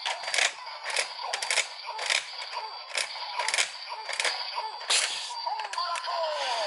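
Don Blaster toy gun playing its electronic transformation standby through its small speaker: a tinny looping jingle with a sharp hit roughly every half second and short gliding voice-like tones.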